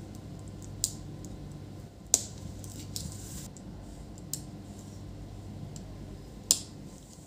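Small sharp clicks and taps from fingers seating cable connectors and Wi-Fi antenna leads inside an opened laptop, a few scattered clicks, the loudest about two seconds in and another near the end, over a steady low hum.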